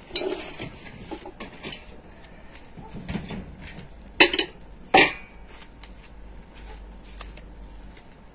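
Sharp clinks and knocks of things being handled close by, a handful in all, with the loudest two about four and five seconds in.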